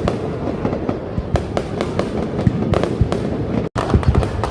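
Fireworks display going off: a dense, continuous run of bangs and crackles, which cuts out for an instant about three seconds in.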